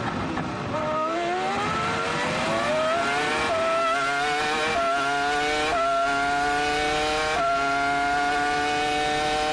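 A 2004 Williams-BMW Formula One car's 3.0-litre V10 accelerating hard out of a slow corner at full throttle. Its pitch climbs steadily through several quick upshifts, each one a brief drop in pitch, and the later gears come further apart and rise more slowly.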